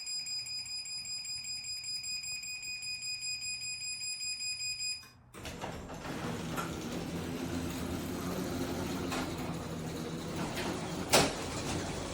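Rapid electronic warning beeps from the MyQ smart garage hub, the alert that sounds before a remotely triggered door movement. After about five seconds the beeping stops and the garage door opener's motor starts running as the door moves, with a sharp clunk near the end.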